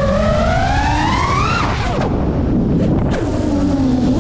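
FPV quadcopter's brushless motors and propellers whining, the pitch climbing under throttle for about a second and a half, then falling away as the throttle is cut; about half a second before the end the whine picks up and rises again. A steady rush of wind and prop wash on the onboard camera runs underneath.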